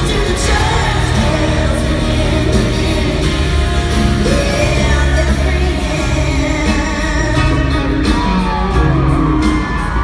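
Live band with a female lead vocalist performing a pop-country song in an arena, heard from the audience with the hall's echo.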